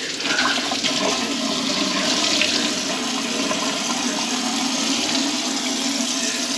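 Water running into a kitchen sink and rushing down the drain: a steady rush that swells over the first couple of seconds.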